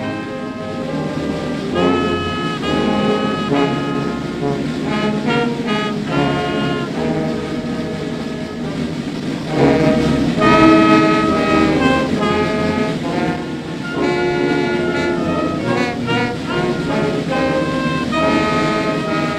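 Brass band playing, with held chords among shorter notes.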